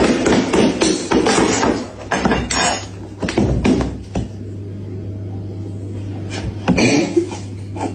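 Rapid clattering and knocking of hard objects for the first few seconds, then a steady low hum, and a short burst of clatter about seven seconds in.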